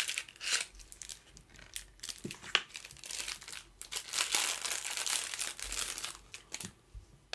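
Small cardboard box being handled and opened with scattered clicks and scrapes, then a thin clear plastic bag crinkling steadily as it is pulled out and handled, busiest from about three seconds in until shortly before the end.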